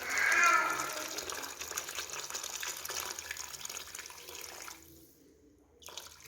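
Water being poured into a pressure cooker over browned meat, a steady pouring splash that fades and stops about five seconds in. A short knock follows near the end.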